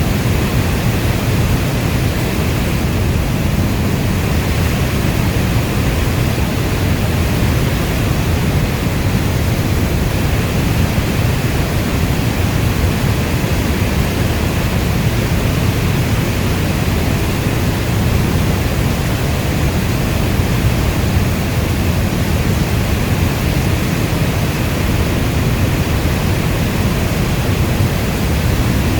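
Steady heavy rain, a dense, even rush of noise weighted toward a deep low rumble.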